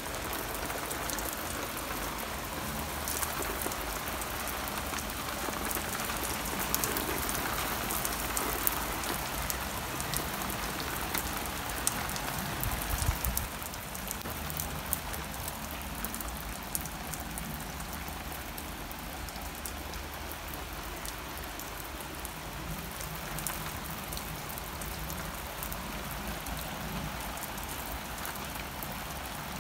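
Heavy rain falling on wet paving slabs and lawn: a steady hiss full of tiny drop hits, a little heavier in the first half. A brief low thud about 13 seconds in.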